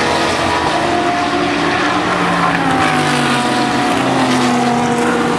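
Several GT race car engines running together as a pack goes through a corner, their notes overlapping, with one engine note falling in pitch about three seconds in.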